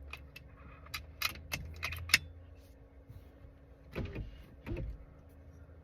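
A run of light, irregular clicks and ticks over about two seconds, then two dull knocks: small handling sounds of an air rifle and gear being readied for a shot.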